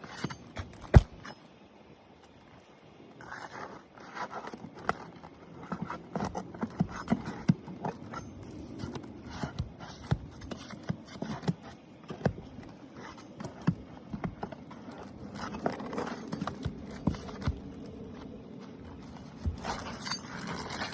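Pry bar working under asphalt roof shingles to pull the nails, with repeated scraping, sharp knocks and clicks, and the noise of the shingles' sealant strips tearing apart. The sealant bond is so strong that it is ripping the shingles themselves. The loudest knock comes about a second in.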